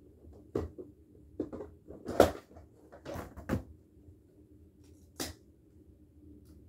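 Clicks and knocks from the housing of an exit sign being handled and pried at to pop a part off. The loudest knock comes about two seconds in, a cluster follows around three seconds, and a single sharp click comes near five seconds.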